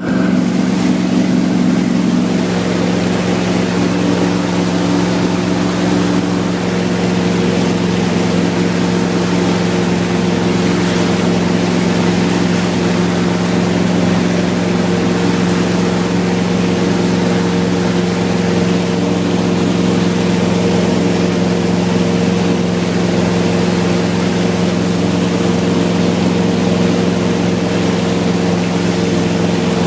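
Wake boat's inboard engine running steadily under way, a constant drone with a steady hum, over the rush of wake water and wind.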